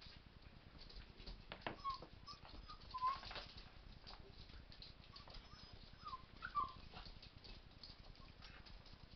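Rat terrier–miniature pinscher puppies at play, giving several short high whines around two to three seconds in and again past six seconds, with light clicks of claws on a hard wood floor between them.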